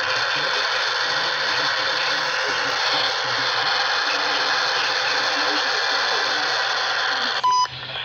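Steady radio static hiss from a handheld Craftsman two-way radio, cut off about seven and a half seconds in by a short electronic key beep as the radio's channel is switched.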